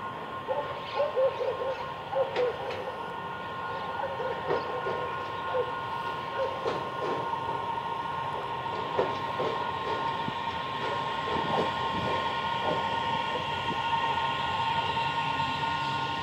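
CSR electric multiple unit running slowly into the station with a steady high whine and scattered clacks from the wheels, growing louder near the end as it comes closer.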